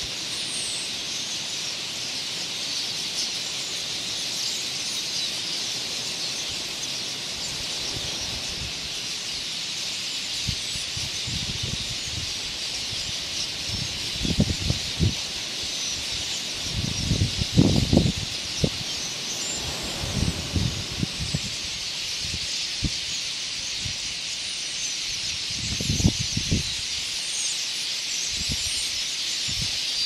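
Massed, steady high-pitched chirping of a huge flock of small birds swarming to drink at a puddle. Several low rushes of wingbeats cut in as the swarm lifts and settles, the loudest about 17 seconds in.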